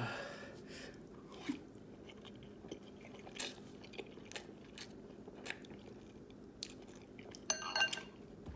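A person eating noodles with chopsticks: chewing and slurping, with scattered short wet mouth clicks and a brief louder burst near the end.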